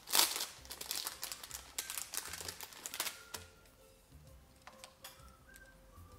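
A small clear plastic bag crinkling and small game tokens clicking together as they are handled, busiest for the first three seconds, then only a few soft clicks.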